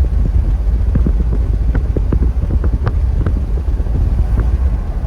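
Wind buffeting the microphone: a loud, steady low rumble with frequent crackling pops.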